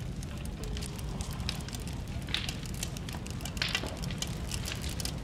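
Fire burning: a steady low rumble with dense, irregular crackles and pops.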